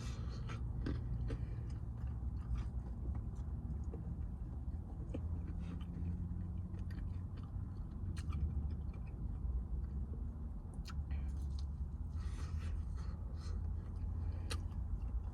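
Close-up chewing and mouth sounds of someone eating a fast-food chicken meal, with scattered small clicks, over a steady low hum. A short breathy sound comes near the end.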